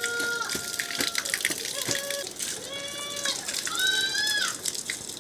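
Water running from an outdoor tap and splashing as rhubarb stalks are rinsed under it by hand. High-pitched calls sound in the background around the middle.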